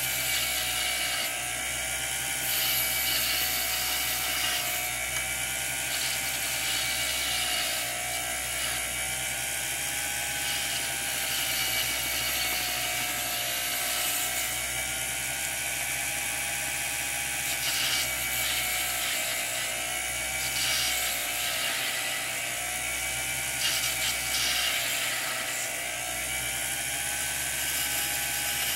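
Jeweler's lathe running steadily, its whine wavering slowly up and down in pitch every few seconds, while a hand graver takes light cuts on the spinning brass rod with a scraping hiss that swells and fades.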